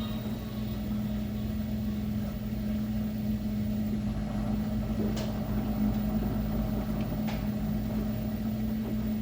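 LG commercial washing machine running with a steady motor hum and low rumble, with two faint clicks about five and seven seconds in.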